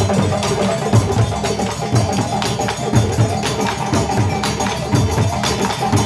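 West African drum ensemble, djembes and other drums, playing live: a fast, dense rhythm of hand and stick strokes over a deep beat about twice a second.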